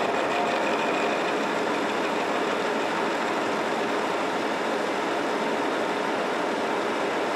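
Engine lathe running under power while a carbide insert tool turns a metal shaft, taking a cut that throws off a curling chip. The spindle drive and the cutting make one loud, steady machining noise with a faint hum running through it.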